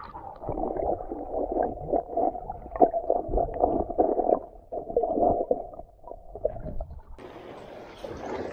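Muffled underwater sound from a submerged action camera: water gurgling and sloshing around it, with irregular knocks against the housing. About seven seconds in, the camera comes out of the water and open-air sound of sea washing over rocks takes over.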